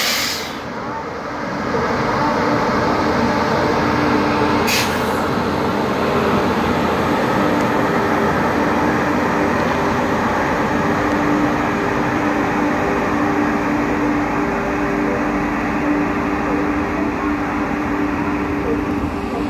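Passenger express train running: a steady rumble with a low hum, and two short hisses, one at the start and one about five seconds in.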